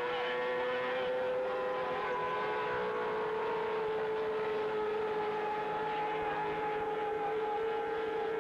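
Racing outboard motor, a two-stroke, running flat out as the boat speeds across the water: a steady high engine drone that sags slightly in pitch.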